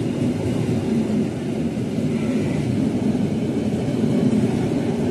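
Coaches of a locomotive-hauled intercity passenger train rolling past close by at speed, a steady rumble of wheels on the rails.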